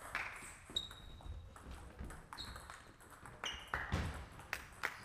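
Table tennis ball clicking off the bats and the table: a few scattered hits, then a quicker run of hits over the last second and a half. Two short high squeaks come in between.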